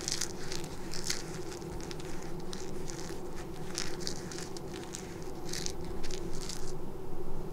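Quick, irregular crinkly rustles as a small furry toy mouse is wiggled and rubbed between the fingers.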